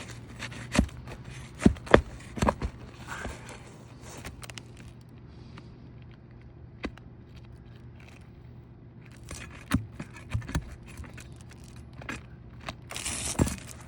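Scattered sharp metal clicks and knocks with short scrapes as nails are pried out of asphalt roof shingles, the tool scraping against the shingle surface.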